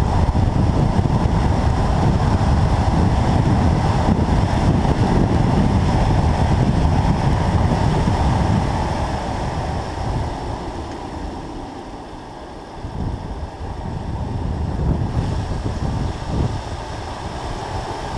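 Wind rushing over the microphone of a camera mounted outside a moving BMW M2 Competition, a loud, even rumble. The rush eases about nine seconds in as the car slows for a bend, then builds again as it picks up speed.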